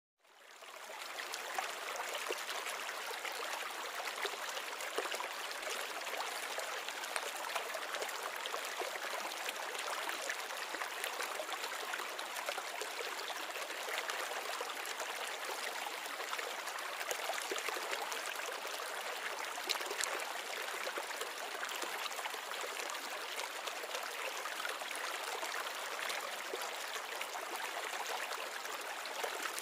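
Water trickling steadily in a small glass-bowl nano reef aquarium, fading in over the first second.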